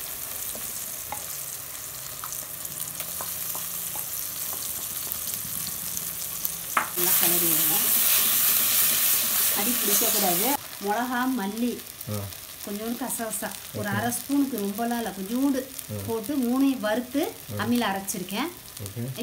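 Onion-tomato masala with freshly added ginger-garlic paste sizzling in oil in a clay pot. About seven seconds in, a much louder hiss of sizzling starts suddenly and cuts off after about three and a half seconds. From then on a wooden spatula stirs and scrapes the thick paste against the pot in repeated strokes.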